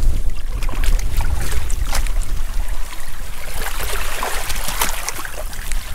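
Wind buffeting the microphone in heavy rain, a steady low rumble with scattered sharp taps, over shallow seawater trickling among rocks and seaweed.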